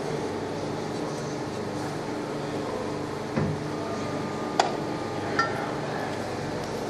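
A machine hums steadily while metal parts are handled, with three sharp metallic knocks and clinks in the middle, the later two ringing briefly.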